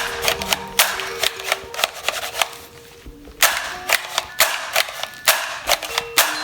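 Sharp, irregular clicks and snaps of hard plastic toy parts being handled, several a second, with a louder cluster of snaps about halfway through.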